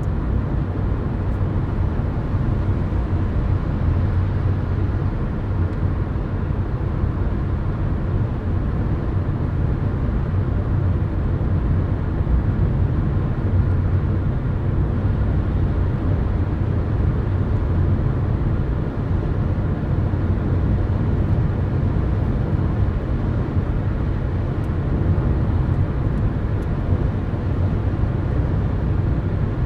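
Steady road noise inside a car cruising on a highway: tyre and engine noise, heaviest in the low range, holding even throughout.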